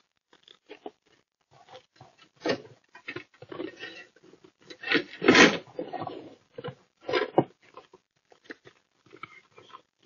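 Footsteps crunching in packed snow and the handling of a snowblower, a run of uneven crunches, knocks and scrapes; the loudest come about two and a half, five and seven seconds in.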